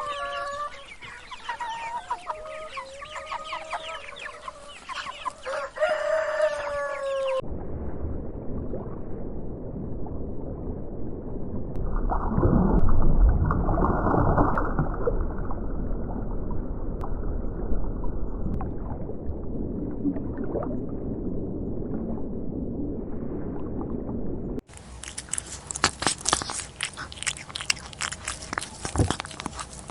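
Chickens clucking and a rooster crowing, in a run of separate recordings: pitched, bending calls for the first seven seconds, then a muffled, noisy stretch, and in the last five seconds a clip full of sharp clicks and taps.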